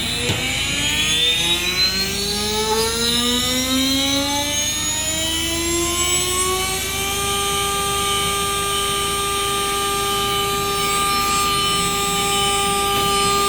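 CNC router spindle motor spinning up: a whine rising steadily in pitch for about seven seconds, then holding a steady high pitch at full speed. A short sharp click sounds just as it starts.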